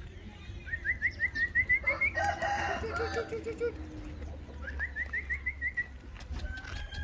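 Chickens calling: two runs of quick, rising chirped notes about four seconds apart, with a short series of lower clucks between them.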